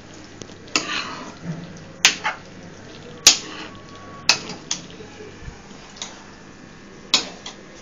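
Metal ladle stirring boiled dried peas and tomatoes in a kadai, with sharp clinks of the ladle against the pan every second or so and light scraping between them.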